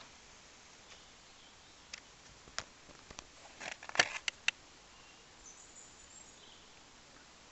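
A metal fork clinking and scraping against a metal mess tin of food, a cluster of sharp clinks in the middle, the loudest about four seconds in.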